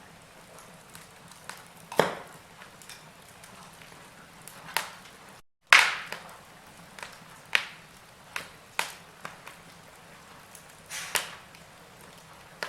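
Wood fire of burning logs crackling over a faint hiss, with sharp, irregular pops every second or two. The loudest pop comes about six seconds in, right after a brief gap where the sound drops out entirely.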